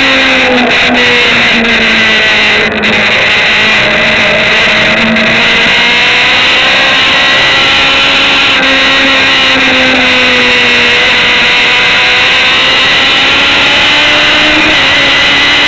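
Sport motorcycle engine running hard while being ridden on a race track, its pitch sinking and rising with engine speed, under heavy wind rush on the microphone.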